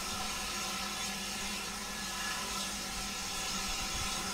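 Steady mechanical hum of a steam train standing at rest, with several steady tones over an even background.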